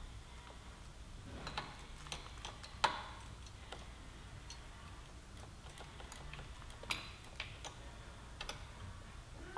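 Scattered light clicks and taps from hands working a motorcycle's front brake lever and caliper bleed screw during brake bleeding. The sharpest click comes about three seconds in and another near seven seconds.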